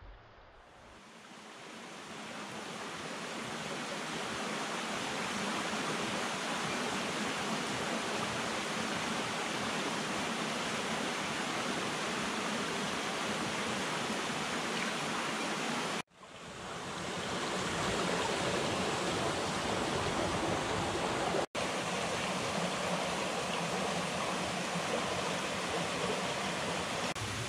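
Shallow mountain stream running over rocks: a steady rush of water. It fades in over the first few seconds and drops out suddenly twice, about halfway through and again a few seconds later.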